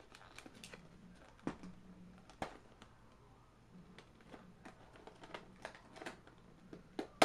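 Earbud packaging being opened: scattered sharp clicks and taps with light rustling of the box, the loudest snaps about a second and a half in and near the end.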